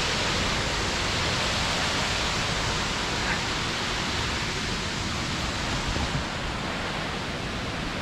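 Steady rushing of a nearby waterfall, an even noise that does not let up.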